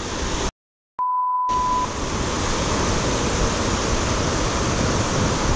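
Steady rushing noise of wind and water that cuts out abruptly for half a second. A short, even beep about a second in follows, and then the rushing noise resumes.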